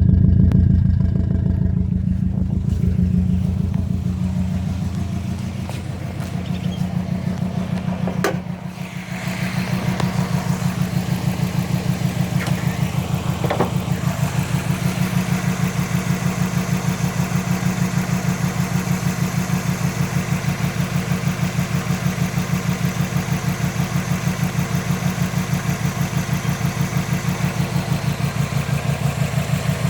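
Subaru WRX's EJ20 flat-four engine idling with a steady, rhythmic pulsing stumble, the sign of a misfire on cylinder 3. There is a short click and a brief dip in level about eight seconds in.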